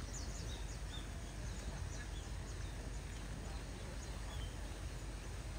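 Steady outdoor background noise with a low rumble, and a few faint, short, high chirps scattered through it.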